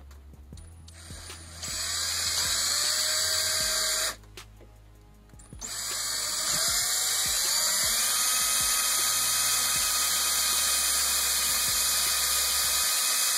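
Power drill boring a 1/8-inch hole in a car's front bar. It runs for about two seconds, stops briefly, then starts again with a rising whine as it spins up and runs steadily.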